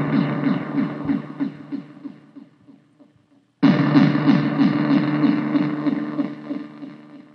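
Analog synthesizer noise from an Arturia MicroBrute cross-patched with a Casper Electronics Nova Drone, played through a bass practice amp. A dense, pulsing tone at about four to five pulses a second fades away. It starts again abruptly about three and a half seconds in and fades out again.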